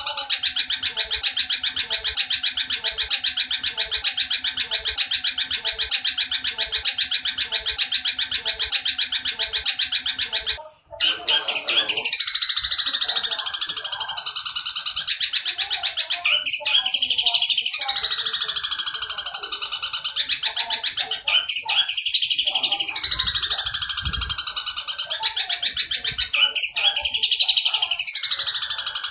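Oriental dollarbird giving fast, harsh chattering calls in a rapid volley. The chatter runs unbroken for about ten seconds, cuts out briefly, then comes back as repeated phrases that each sweep down in pitch.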